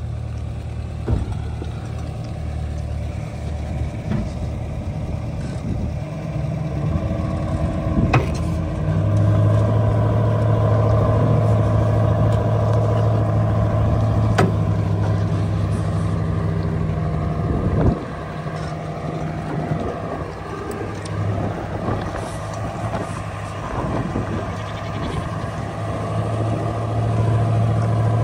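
Pickup truck engine running under load while it tows a stuck two-wheel-drive pickup on a strap through mud. The engine gets louder about nine seconds in, eases off sharply around eighteen seconds and picks up again near the end. A few sharp knocks sound along the way.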